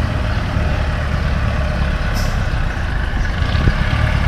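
Street traffic: motor vehicle engines running with a steady low rumble, and a short hiss about two seconds in.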